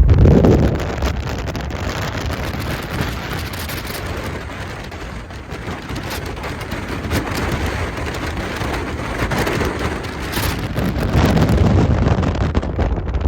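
Rushing running noise of a moving train, with rattles and clicks throughout; loudest at the start, easing in the middle and building again near the end.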